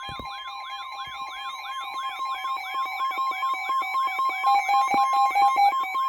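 Electronic alert siren sweeping rapidly up and down, about three times a second, over steady attention tones near 1 kHz, growing louder toward the end: an emergency alert signal announcing a new warning.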